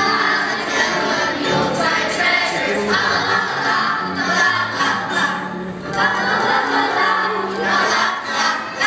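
Children's choir singing a song in unison with musical accompaniment underneath.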